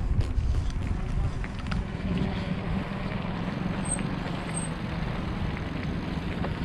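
Wind buffeting the microphone and a steady low rumble as a bicycle rolls along an asphalt road, with two short high chirps about four seconds in.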